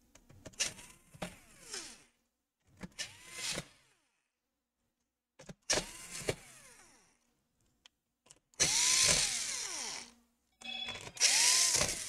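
Cordless electric screwdriver driving the screws of a laptop's bottom cover, in five short bursts. In each burst the motor's pitch rises and then winds down again, and the last two bursts are the loudest.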